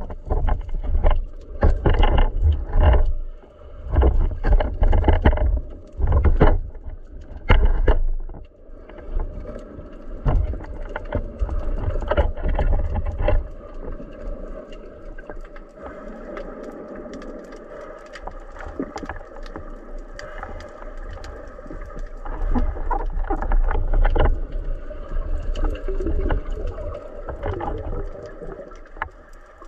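Muffled underwater noise picked up by a speargun-mounted camera: a run of knocks and thumps with a low rumble through the first several seconds, then a steadier, quieter hum.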